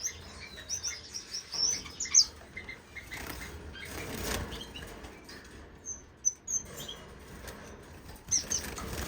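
Small caged finches fluttering their wings, with clusters of short, high chirps now and then.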